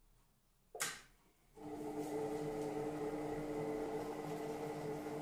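A sharp click, then under a second later a Monsieur Cuisine Connect food processor's motor starts and runs with a steady hum, its blade mixing batter at speed 2.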